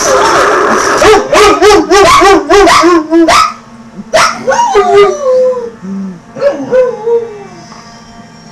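Dogs howling: a quick series of short yipping howls, about two a second, then a few long howls that slide down in pitch and trail off near the end.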